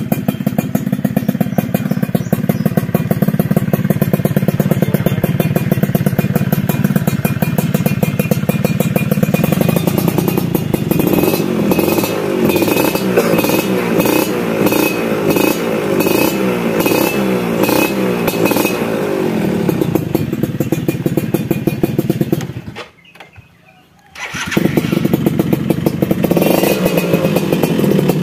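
Two-stroke single-cylinder Suzuki Tornado motorcycle engine breathing through a 'standard racing' aftermarket exhaust: idling steadily, then blipped up and down repeatedly for several seconds, settling back. Near the end the sound cuts out for a moment and then the engine is heard running again.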